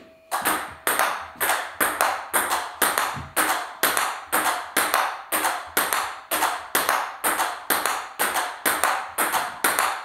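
A table tennis rally of forehand strokes: ball clicking off the rubber-faced rackets and bouncing on the table in an even rhythm, about two clicks a second.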